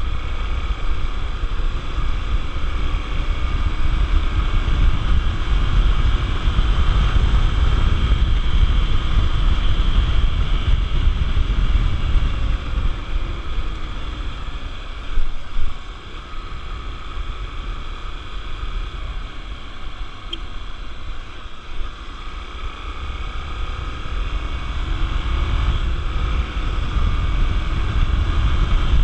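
Honda XR 250 Tornado single-cylinder motorcycle engine running on the move, under heavy wind rumble on the microphone. The engine note rises and falls a little, easing off about halfway through and building again near the end.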